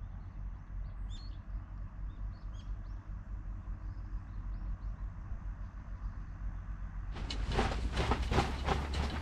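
Scattered faint bird chirps over a low, steady wind rumble. About seven seconds in, a louder rhythmic rustling starts, some three strokes a second.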